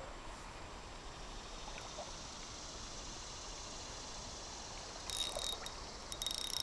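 Faint, steady creek water, with two short, high clicking whirs about five and six seconds in, from a spinning reel worked against a lure snagged on a log.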